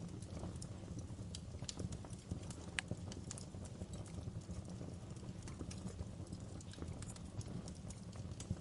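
Wood fire crackling in a fireplace: irregular sharp pops and snaps from burning logs over a steady low rumble.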